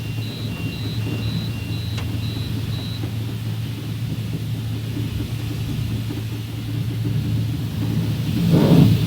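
Car wash machinery running with a steady low hum. A repeating electronic beep stops about three seconds in, there is a single click about two seconds in, and a short loud rush, like a burst of spray, swells and fades just before the end.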